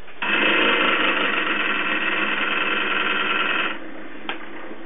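Hanna HI902C auto titrator's burette pump motor running steadily for about three and a half seconds after the test is started, then stopping abruptly. A single click follows, over a quieter steady hum.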